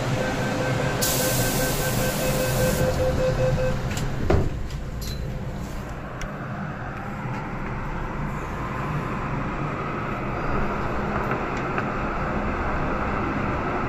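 MTR M-train pulling out of a station, heard from inside the car: over a steady running rumble comes a held tone and a two-second hiss of air, then a sharp knock about four seconds in. After that the traction motor whine climbs slowly in pitch as the train gathers speed.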